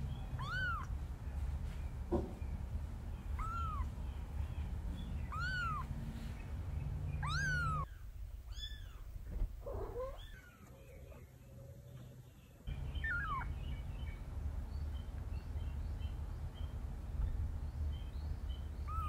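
Very young kitten mewing over and over, short high cries that rise and fall in pitch, about every two seconds: a kitten away from its nest crying for its mother.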